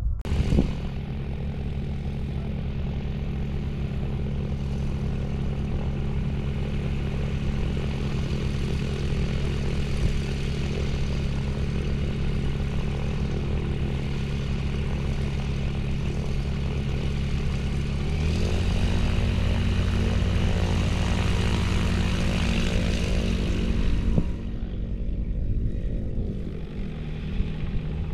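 Single-engine light propeller plane's piston engine running at a steady low throttle setting. About two-thirds of the way through it is throttled up and its pitch rises, then it eases back down near the end.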